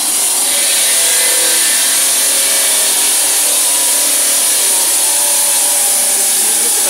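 Water-fed circular stone saw cutting through a marble slab: a loud, steady grinding hiss with a faint wavering whine under it.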